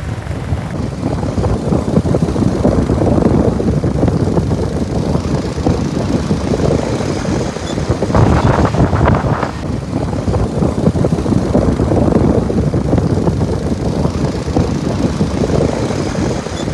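Motorcycle engine running while riding, mixed with wind buffeting the microphone.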